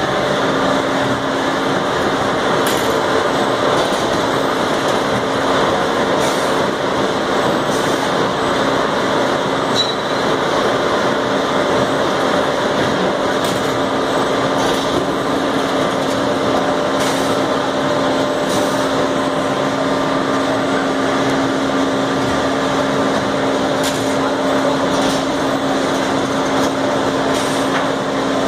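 Automated brick-handling machinery and roller conveyors in a ceramic brick plant running steadily, with a constant hum and scattered short clacks and knocks.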